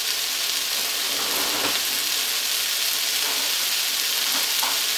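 Cauliflower florets frying in hot olive oil in a nonstick wok, a steady sizzling hiss.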